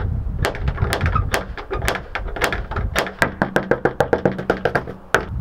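Repeated knocking on a front door, first with its metal door knocker and then with a fist: some two dozen sharp raps that come faster and closer together in the second half. Background music plays throughout.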